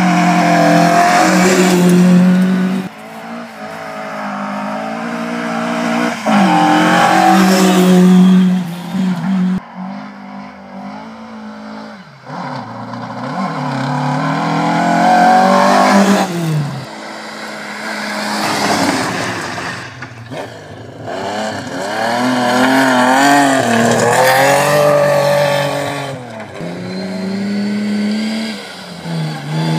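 Historic rally cars at full throttle on a gravel forest stage, passing one after another. Each engine revs hard, rising and dropping in pitch with the gear changes, then swells and fades as the car goes by.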